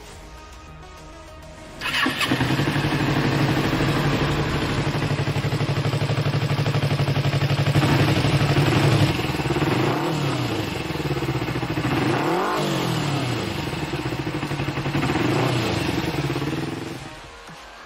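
A Kawasaki GPZ-250R's 248 cc parallel-twin engine comes in suddenly about two seconds in and runs at a steady pitch. From about eight seconds in it is revved up and down several times, its pitch falling and rising, until it stops shortly before the end.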